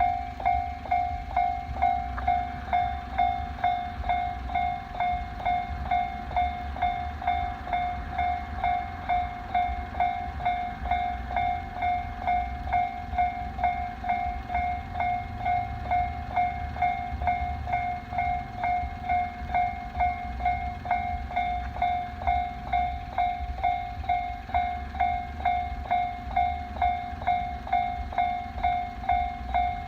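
Japanese railway level-crossing alarm ringing its steady two-tone-free 'kan-kan' warning, a clear bell-like tone struck about one and a half times a second without a break, over a low rumble.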